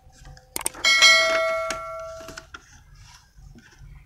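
Subscribe-button sound effect: a short click, then a bell chime with several ringing tones that fade away over about a second and a half.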